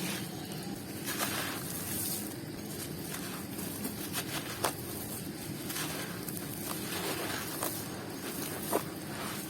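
Crunchy, crumbly balls and squares crackling and crumbling, with a steady fine crackle and a few sharper snaps about a second in, around the middle and near the end.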